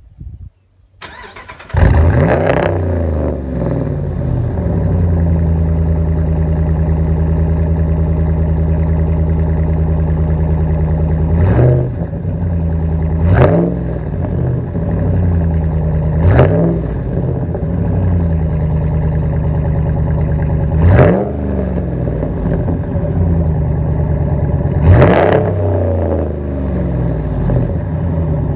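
Straight-piped (muffler-delete) Hemi V8 of a Dodge Ram pickup starting up: a brief crank, then it catches with a loud flare and settles into a steady idle. It is then blipped five times, each rev rising and dropping quickly back to idle.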